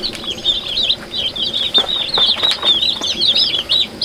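A brood of young broiler chicks peeping non-stop, many short high chirps overlapping one another, with a few faint taps in the middle.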